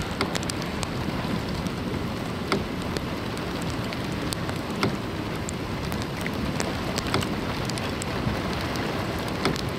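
Rain drumming on a car, heard from inside the cabin: a steady hiss with many sharp, separate ticks of drops hitting the roof and windshield.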